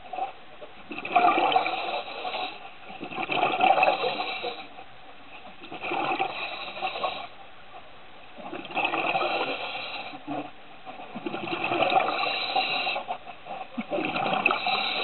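Scuba diver breathing through a regulator underwater: a rush of exhaled bubbles every two to three seconds, about six times, with quieter gaps between breaths.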